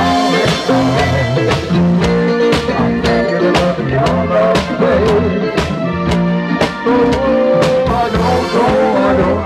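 A live band playing: a drum kit keeps a steady beat of about two strokes a second under an electric bass and other instruments.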